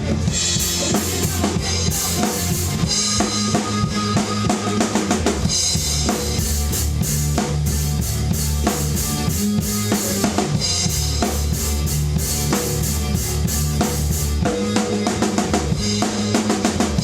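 Rock drum kit played hard along to a heavy rock recording: a driving kick-and-snare beat with cymbal crashes every few seconds over the band's sustained bass and guitars.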